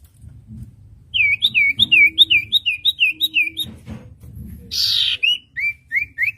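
Common iora singing: a fast run of repeated downslurred whistled notes, about four a second, broken near the middle by a short harsh rasping note, then more slurred notes.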